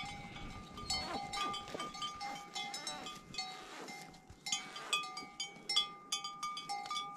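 Metal bells on a pair of bullocks ringing unevenly as the animals walk, with a fresh clank every moment or so.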